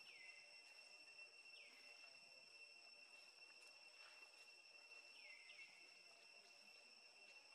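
Near silence: a faint, steady high-pitched insect drone, with a few short falling chirps about a second and a half and five seconds in.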